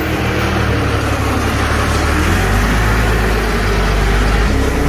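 Komatsu forklift engine running close by, with its low note shifting and growing heavier about two seconds in.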